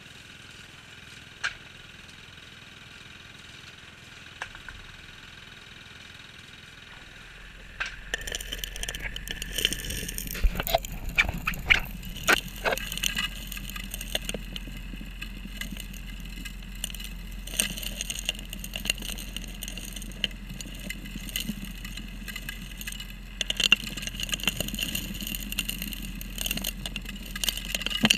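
A 3-inch gold dredge working underwater. It drones steadily while rocks and gravel clatter and knock as they are sucked into the suction nozzle and hose. About eight seconds in it grows louder and the knocks come thick and fast.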